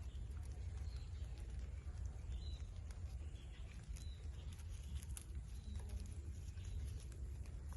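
Faint short chirps from a lutino Indian ringneck parrot, a few scattered over several seconds, with a few sharp clicks about five seconds in, over a steady low rumble.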